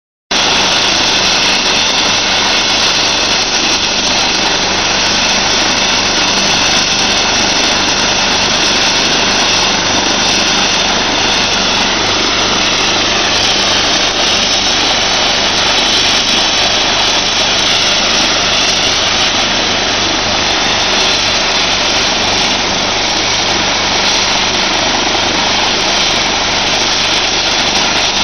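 Rescue helicopter running on the ground with its main rotor turning: a loud, steady mix of turbine whine and rotor noise over a low even hum.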